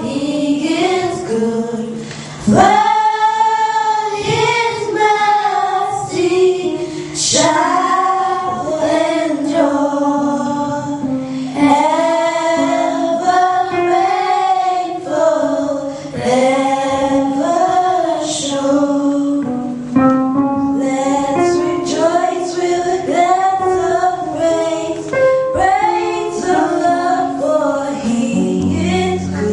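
Children's choir singing a gospel praise song, many voices together.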